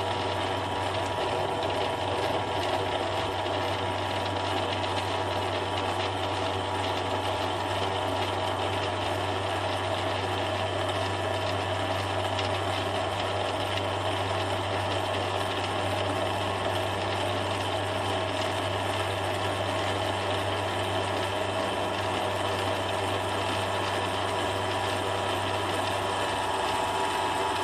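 Atwood electric trailer-tongue power jack's motor and gear drive running steadily under power, driving the jack through its travel.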